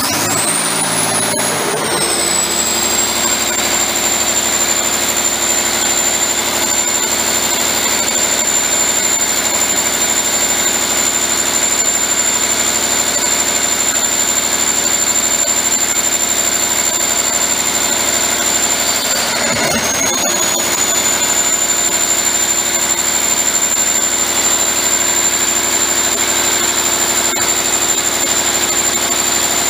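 John Deere 6.8-litre inline-six diesel engine catching and settling into a steady idle, with a high whine that climbs as it starts and then holds steady. The whine dips briefly about twenty seconds in.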